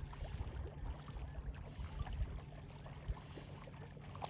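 Wind buffeting the microphone in uneven gusts, over faint sloshing of open water.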